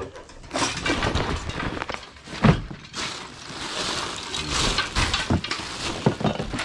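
Things being handled and rummaged through: irregular rustling and clattering, with sharp knocks about two and a half seconds in and again near the end.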